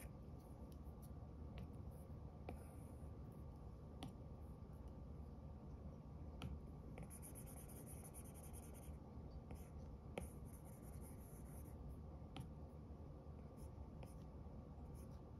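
Apple Pencil tip scratching and tapping on an iPad's glass screen during sketching: soft scratchy strokes, the longest about halfway through, with a handful of sharp taps, over a faint steady hum.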